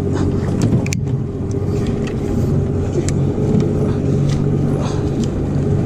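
A boat's motor running steadily with a low, even hum, with a few scattered short knocks over it.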